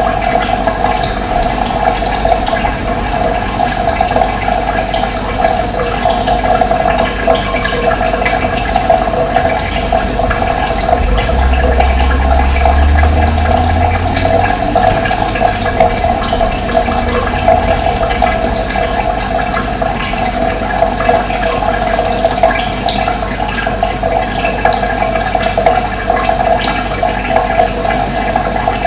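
Running water flowing steadily, a continuous rushing sound.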